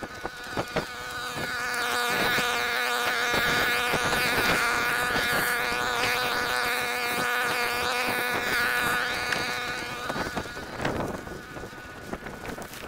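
A small engine droning at a steady pitch, swelling over the first couple of seconds, holding, then fading away near the end. Branches and brush rustle and scrape as they are carried and dragged.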